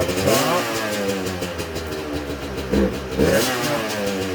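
A motorcycle engine running and revving, its pitch sweeping up twice.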